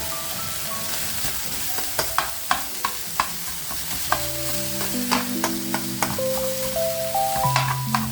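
Food frying in a pan with a steady sizzle, while a utensil stirs and knocks against the pan several times. Background music plays along.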